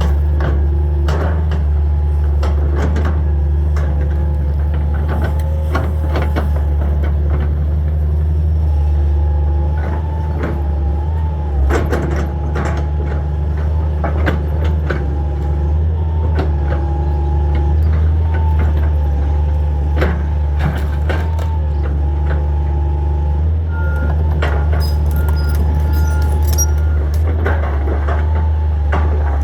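Hitachi 225 excavator's diesel engine running steadily under load, with a whine that shifts in pitch as the machine works and repeated knocks and cracks of wood and debris being handled. A few short beeps come near the end.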